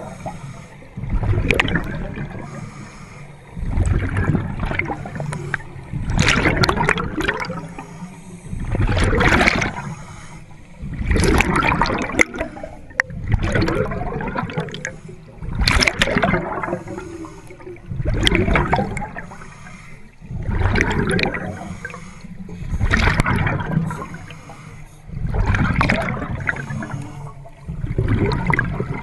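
Scuba regulator breathing underwater: exhaled air bubbles rushing and gurgling past the microphone in regular bursts about every two and a half seconds.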